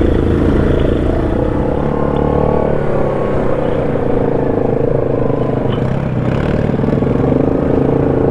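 ATV engine running under way on the trail, its pitch rising and falling a little.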